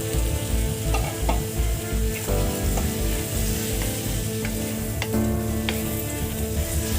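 Kabuli chickpeas and spice paste sizzling in hot oil in a pan while being stirred, with a few sharp scrapes or knocks of the stirring utensil against the pan.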